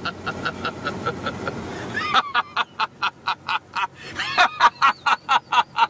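A man laughing in rapid repeated bursts, about four a second. The laugh is fainter at first and much louder from about two seconds in.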